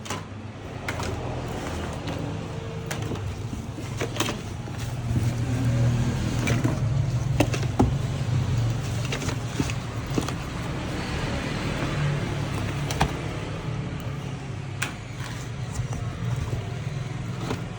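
A steady low rumble with scattered short clicks and knocks, a little louder in the middle.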